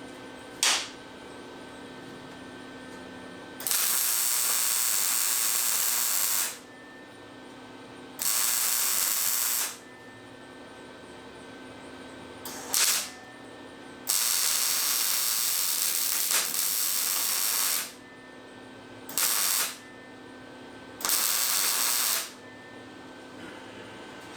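MIG welder welding a stainless steel base, filling gaps in the joints: four brief tack bursts and four longer runs of a steady hiss, each starting and stopping abruptly, with a low machine hum between them.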